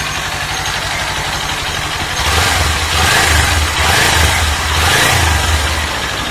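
Kawasaki Ninja 400's parallel-twin engine idling through its exhaust, then revved in several blips from about two seconds in.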